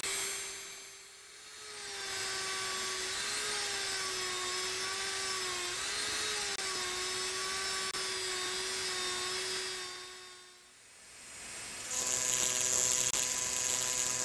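Small high-speed rotary engraving drill whining steadily as its bit grinds into a crystal glass block, the pitch dipping and recovering slightly as it is pressed into the glass. The sound fades away twice, and near the end it comes back as a louder, hissier whine of a different pitch.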